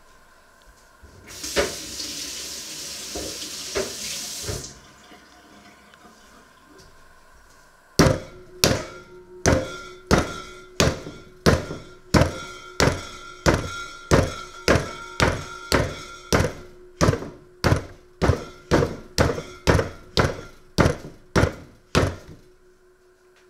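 A thick wooden pin pounds dough in an enamelled pot, some thirty blows at about two a second. Each blow is a dull thud that sets the pot ringing briefly. Before the pounding starts, a few seconds of steady rushing noise are heard.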